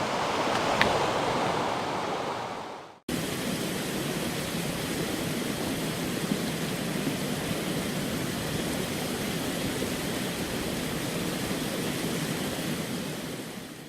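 Steady rush of a rocky mountain creek or small waterfall. It fades out and breaks off about three seconds in, then comes back just as steady and fades again at the end.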